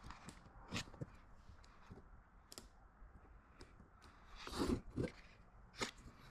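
Small handling noises from working on a flimsy glued template: scattered light clicks and taps, with a louder rustle about four and a half seconds in.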